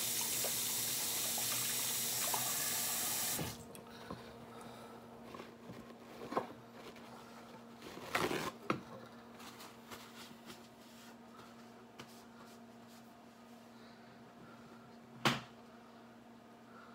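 Kitchen faucet running as hands are washed, turned off abruptly about three and a half seconds in. Then a few scattered knocks and clicks, the sharpest one near the end.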